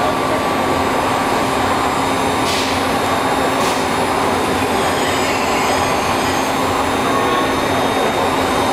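Pinnacle BX700 five-axis machining centre milling a metal car-model mold: a steady mechanical running noise with a constant hum. Two short hissing bursts come about two and a half and three and a half seconds in.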